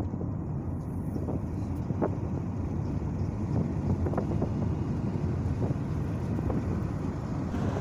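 Steady low rumble of a moving car heard from inside the cabin, with scattered soft knocks and rubbing as the phone is handled against fabric.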